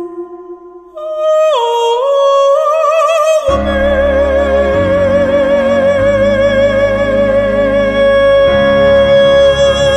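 Female operatic voice singing with wide vibrato. After a brief hush she comes in about a second in and slides down in pitch, then a full accompaniment with low bass enters about three and a half seconds in under a long held note.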